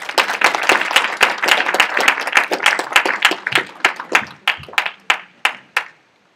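Audience applauding, a dense patter of hand claps that thins to a few scattered claps near the end and stops about six seconds in.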